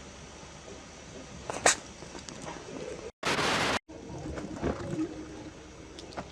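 Hedgehog sneezing and snuffling: a sharp sneeze about a second and a half in, then a loud hissing puff lasting about half a second midway, with a few small snuffles around them.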